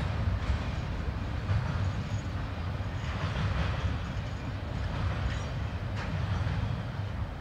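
Double-stack intermodal freight cars rolling past at a distance: a steady low rumble of wheels on rail, with a sharper click about six seconds in.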